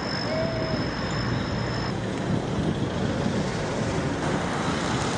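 Steady road traffic noise, an even rushing sound with no clear single vehicle standing out.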